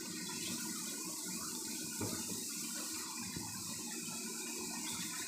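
Shrimp-and-tomato sauce simmering in a large aluminium wok: a steady, watery bubbling.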